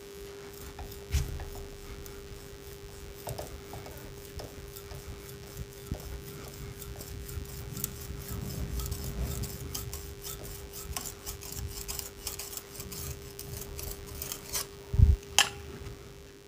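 A flat-blade screwdriver is twisted and worked out of a hole in a brick wall with pliers: steel grates and scrapes against brick, with a quick run of small clicks. Two louder knocks come near the end.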